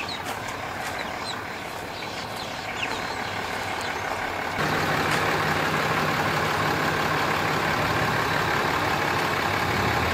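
A few short high chirps over a soft outdoor hiss, then about four and a half seconds in, the steady, louder engine hum of a Ram 3500 pickup truck towing a boat on its trailer.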